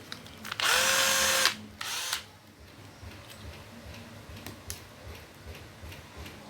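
Hitachi cordless drill triggered briefly: the motor spins up to a steady whine for about a second and stops, then runs once more in a shorter burst. Faint handling clicks follow.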